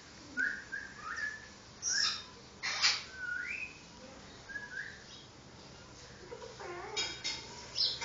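Pet parrot whistling: a string of short whistles, several rising in pitch, broken by harsh squawks about two and three seconds in and again near the end.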